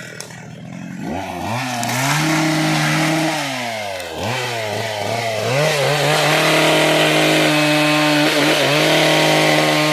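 Two-stroke gasoline chainsaw cutting dry, hard teak. It revs up about a second in and holds high, eases off briefly around four seconds, then revs up again and holds steady.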